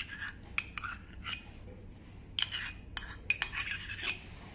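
Metal spoon clinking and scraping against a small ceramic cup while scooping out thick hung curd: a string of sharp, irregularly spaced clinks.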